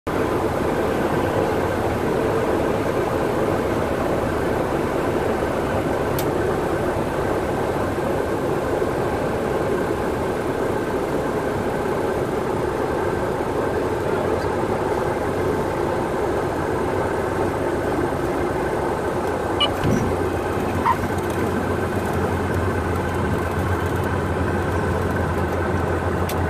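Cessna 172's piston engine and propeller running steadily, heard from inside the cabin while the plane is over and on the runway. A few light knocks come about twenty seconds in, after which a deeper low rumble joins the engine.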